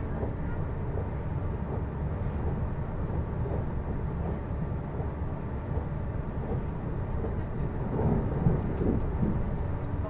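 Running noise inside the carriage of a JR East E259 series Narita Express electric train at speed: a steady low rumble of wheels on rail. The rumble swells briefly about eight seconds in.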